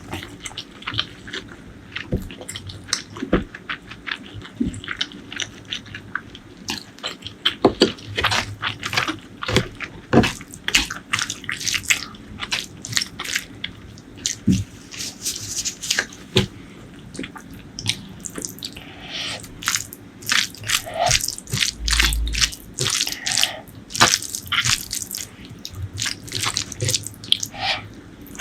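Close-miked wet eating sounds: a person chewing saucy food with many quick, irregular mouth clicks and smacks.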